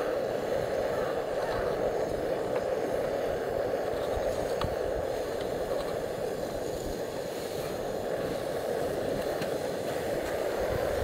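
Canister gas stove burner running steadily under a pot of coffee coming to the boil.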